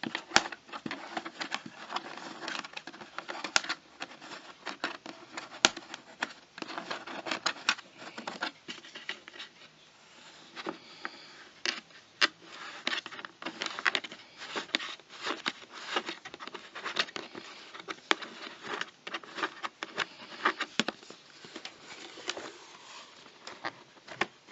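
Packaging being handled while a wall clock is unboxed: irregular rustling and scraping with many sharp taps and clicks.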